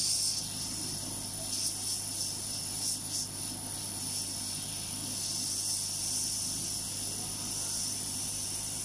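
Hot air rework station blowing a steady hiss of hot air onto a phone circuit board, with a low hum under it, heating the solder to take off the battery connector.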